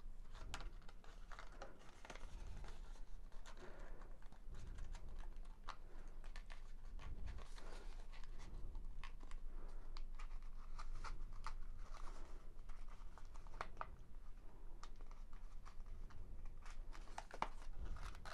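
Paper rustling and crinkling as hands push a folded tab through a slot in a rolled paper cone, with many small clicks and scrapes.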